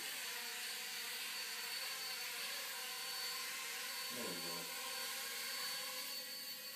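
Small remote-control toy helicopter's electric rotor motor whirring steadily, a high even whine. A brief voice sound about four seconds in.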